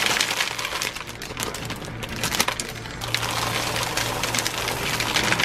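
White chocolate chips pouring from a plastic bag into a plastic mixing bowl: a dense, uneven patter of small clicks as the chips land on the bowl and on each other.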